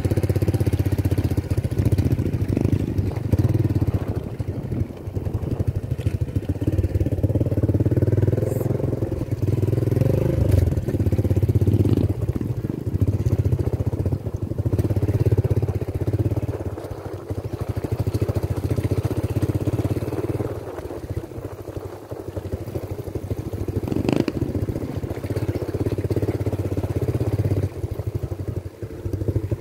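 Small motorcycle engine running steadily while riding, its level rising and falling, with one sharp knock about three-quarters of the way through.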